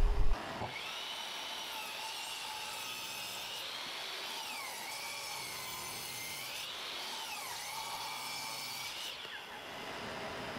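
Electric power saw running and cutting wood lumber, a steady whine whose pitch sags twice under load before it cuts off about nine seconds in.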